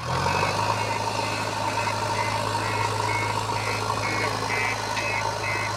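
JCB 3DX backhoe loader's four-cylinder diesel engine running with a steady low drone as the machine moves, with a high-pitched reversing alarm beeping about twice a second as it backs up.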